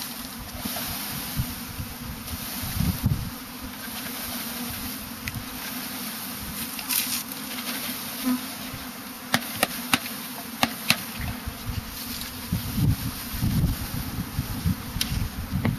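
A mass of honeybees buzzing as a package of bees is shaken out into a hive, with scattered knocks and taps, more of them in the second half.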